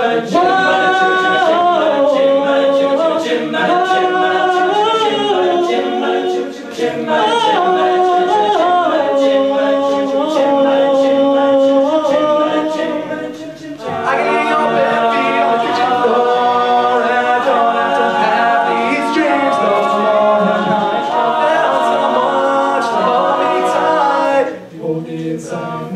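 A high-school a cappella group sings unaccompanied, several voices holding harmonised chords that shift every second or two. There is a brief break about 14 seconds in.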